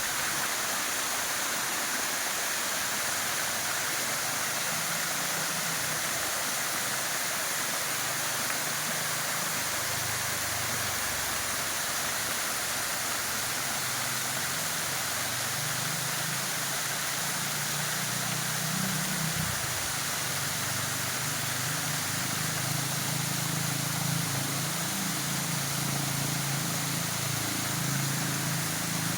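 Waterfall rushing: a steady hiss of falling water, with a low, wavering rumble underneath that grows stronger in the second half.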